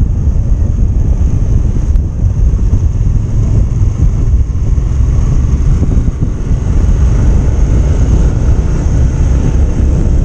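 Wind rushing over the microphone of a moving motor scooter, with the scooter's engine running underneath: a loud, steady low rumble. A faint, steady high whine sits above it.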